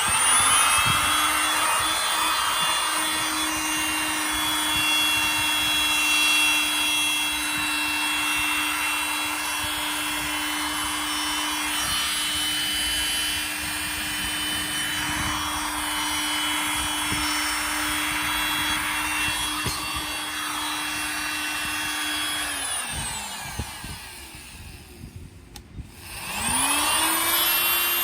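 Ryobi 300 W oscillating multi-tool running at a steady high speed after spinning up, then winding down and stopping about 23 seconds in, and starting up again near the end.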